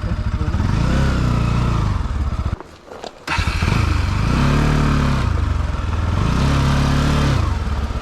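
Motorcycle engine revving up and down in repeated surges, with a short drop in engine sound about two and a half seconds in.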